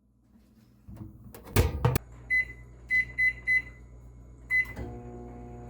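Microwave oven door shut with a clunk, then four keypad beeps and one more as it is started, after which the oven starts running with a steady hum.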